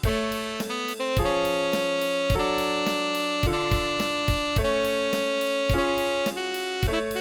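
Tenor saxophone playing a melody in held notes over a backing track with piano or keyboard and a steady beat.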